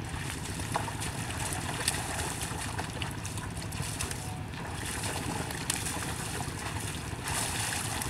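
Hooves of a pair of bullocks and a plough sloshing through flooded paddy mud, with a steady low rumble of wind on the microphone and a few faint splashes and clicks.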